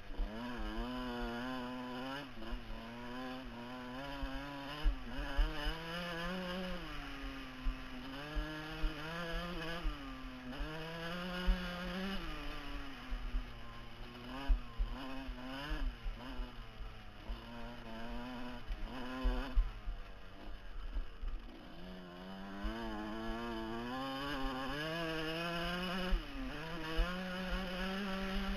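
Off-road dirt bike engine at race pace, its pitch repeatedly rising and dropping back with the throttle, with sharp thumps scattered through as it rides over rough, rocky ground.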